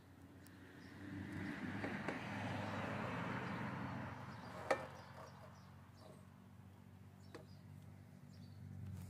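Manual iron and stirrup bender folding a tab on a steel flat bar: a rush of noise swells and fades over about three seconds, with a sharp metallic click about halfway through and a lighter click later.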